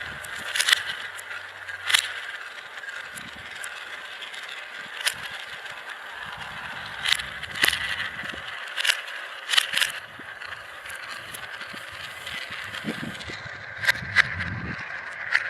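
Marbles running through a large marble run of funnels: a steady rolling whir with irregular sharp clicks as marbles strike the track and drop, and a low rumble twice, about a third of the way through and near the end.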